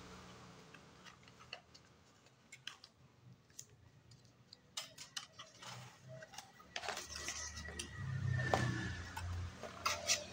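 Hands unpacking a smartwatch box: scattered light clicks, taps and rustles of cardboard, paper and plastic packaging, thicker in the second half, with two sharp clicks near the end.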